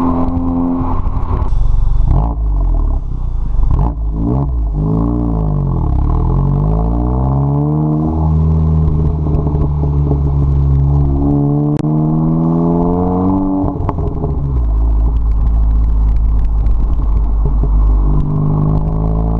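Car engine breathing through an AWE Tuning track exhaust, revving up and dropping back several times, with stretches of steady running between the rises.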